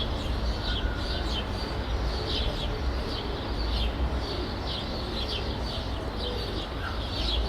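City residential ambience: small birds chirping over and over, short high chirps several times a second, over a steady low rumble of distant traffic.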